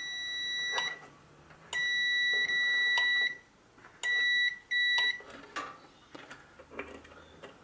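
Digital multimeter's continuity buzzer beeping as the probes are held on a hob switch's terminals. A steady high-pitched tone sounds for about the first second, again for about a second and a half in the middle, then twice briefly around five seconds in; each beep means the switch contacts are conducting. Light clicks from the probes touching the terminals come between the beeps.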